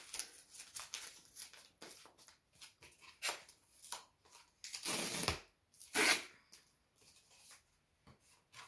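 Packaging being handled and unpacked by hand: irregular rustling of plastic and cardboard in short bursts, the loudest about five and six seconds in.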